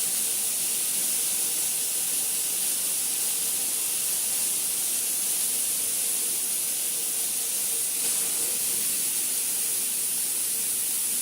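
A CNC machine running with a steady hiss, like a spray or air jet, with a faint steady hum underneath.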